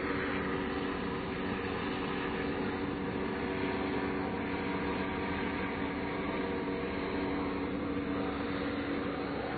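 A vehicle engine running steadily: an even hum with steady tones and no change in pitch.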